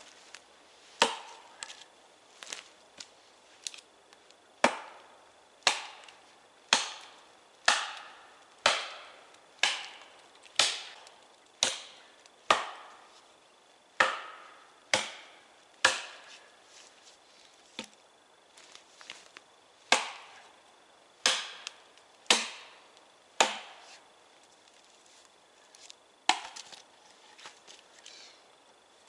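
Hatchet chopping wood: a run of sharp blows, mostly about one a second, with a short pause about halfway through, then a few lighter, scattered knocks near the end.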